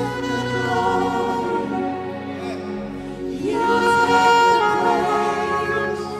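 Gospel worship music: a group of voices singing long held notes over sustained chords, swelling louder about three and a half seconds in.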